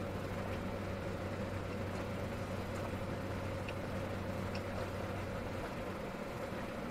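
Steady hum heard inside a parked car's cabin, with the engine idling and the air conditioning running; the lowest part of the hum drops away near the end.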